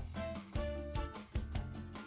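Background music with a steady beat and short melodic notes.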